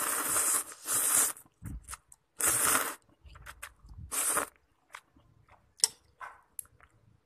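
A person eating instant noodles with kimchi close to the microphone: four loud, short noisy mouth sounds of biting and chewing in the first half, then quieter chewing clicks.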